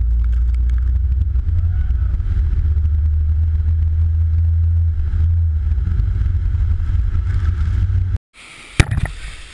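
Steady low rumble of a Land Rover Defender 110 driving through deep flood water while towing, with water rushing around it. The rumble cuts off abruptly about eight seconds in, followed by a couple of sharp knocks.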